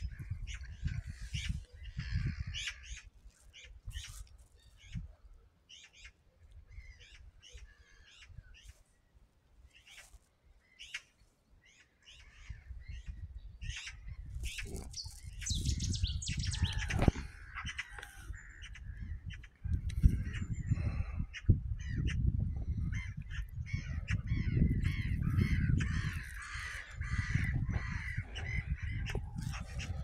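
Gulls calling again and again in short cries, most densely near the end. From about halfway in, a low rumble on the microphone sits under the calls.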